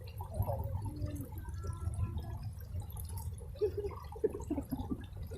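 Water dripping and trickling over a steady low rumble, with a few faint short sounds on top.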